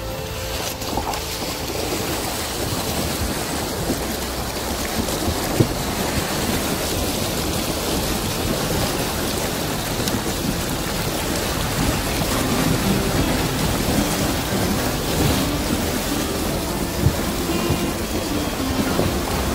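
Shallow river water rushing and splashing over stones: a steady, loud rush.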